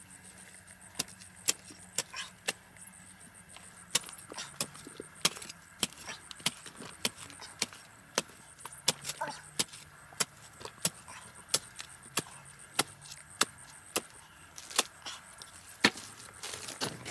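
A metal shovel and hand trowel digging into stony soil, making sharp, irregular chops and scrapes about one or two a second. The strikes come thicker near the end.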